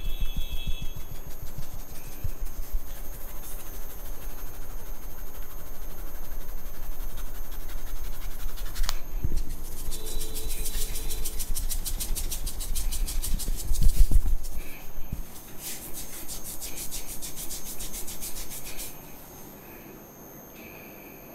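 Hands rubbing, scratching and patting on a person's head and hair during a barber's head massage, in a quick rhythm of soft thuds with bursts of fast scratchy rubbing. It goes much quieter near the end.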